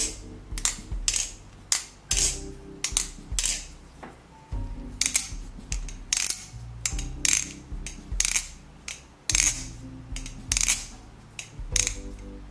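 A G10-handled Armed Shark Hourglass replica balisong being flipped, its steel blade and handles clacking as they swing and close. The pivots are still dry and unlubricated. It makes a run of sharp, very metallic clicks, a few a second.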